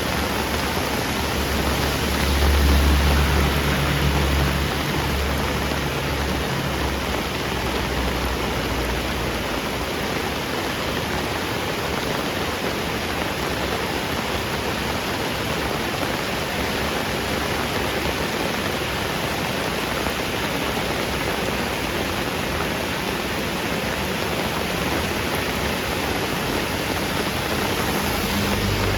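Heavy rain falling steadily on a street, a continuous even hiss. A low rumble swells a few seconds in and fades out.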